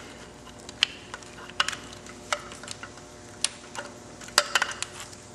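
Irregular light clicks and taps of a plastic wiring-harness connector and wires being handled among a motorcycle's wiring, over a faint steady hum.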